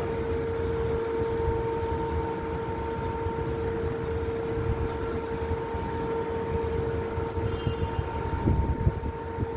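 Steady mechanical hum holding one constant tone, over low street rumble.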